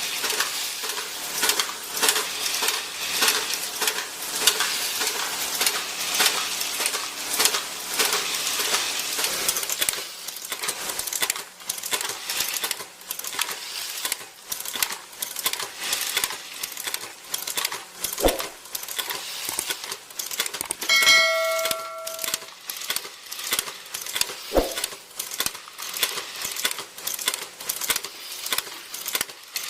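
Small metal parts in ammunition production machinery, clinking and clattering in a dense, irregular patter. About 21 s in a single part rings out with a clear, bell-like ding, and two heavier knocks come a few seconds either side of it.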